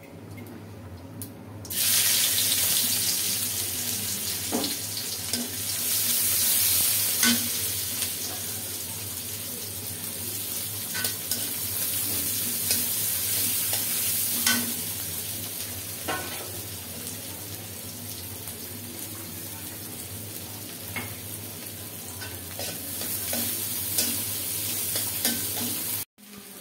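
Whole cumin seeds sizzling in hot oil in a pan as a tempering, the sizzle starting suddenly about two seconds in, with occasional clicks of a spatula stirring against the pan.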